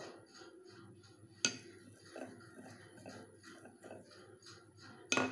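Rolling pin rolling out a disc of dough on a countertop: faint rubbing, with a sharp knock about a second and a half in and a louder one near the end.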